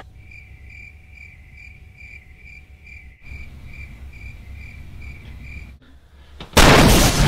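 Cricket-chirping sound effect: a single cricket-like chirp repeating steadily about two and a half times a second. This is the stock comedy cue for an awkward silence after a joke falls flat. About six and a half seconds in, a loud burst of noise cuts in abruptly.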